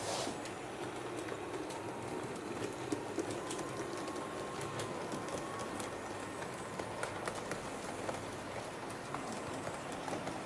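HO-scale model train running along the track: a steady rumble with irregular clicks from wheels and rail joints and a faint wavering whine.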